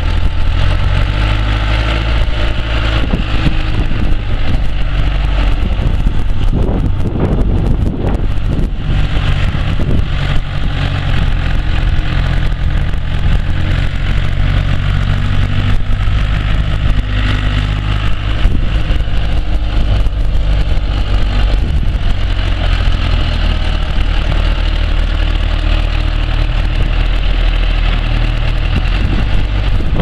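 John Deere 310D backhoe's turbocharged four-cylinder diesel engine (John Deere 4039DT) running steadily at low speed.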